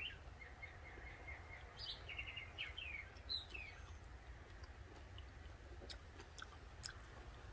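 Small songbird chirping: a quick run of short repeated chirps and a few separate calls in the first three seconds or so, over a steady low background rumble. A few soft clicks come near the end.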